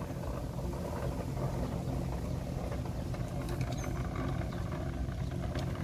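Honda Navi's small single-cylinder engine idling steadily with a low, even hum, just after fresh oil has been added.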